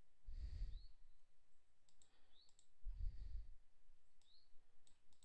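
A few sharp, quiet computer-mouse clicks, spaced unevenly, as a debugger is single-stepped through code. Three soft low puffs of noise come between them.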